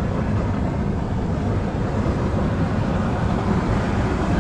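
Geothermal steam vent at a geyser field, steam and boiling water rushing out of the ground with a steady, deep rushing noise.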